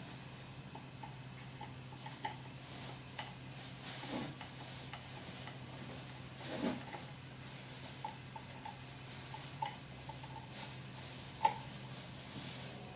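Scattered light clicks and taps of small hard objects being handled, the sharpest near the end, over a steady low hum.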